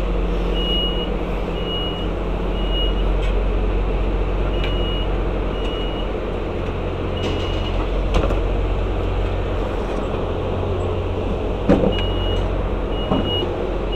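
Short high electronic beeps, about two a second, sounding in runs with pauses between, over the steady low hum of a train standing at the platform. A couple of knocks near the end.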